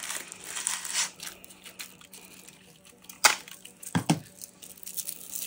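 Crinkling and rustling of a handheld sticker maker's adhesive film as a paper cutout is pulled through it, then a sharp click and a couple of light plastic knocks about four seconds in as the machine is set down.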